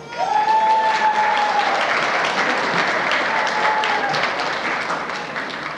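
Audience applauding, with a long high held cheer rising over the clapping near the start and a shorter one a little past the middle.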